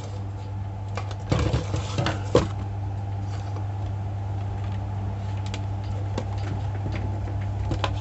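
A few light clicks and taps from handling the kettle's thermostat switch and tester probes, about one to two and a half seconds in, over a steady low electrical hum.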